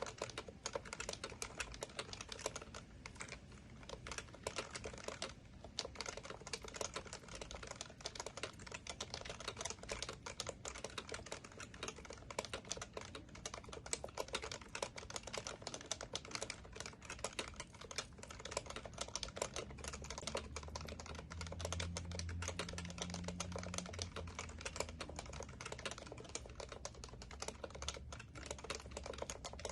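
Continuous fast typing on an HHKB Professional Classic keyboard with Topre tactile switches: a dense, unbroken run of keystrokes.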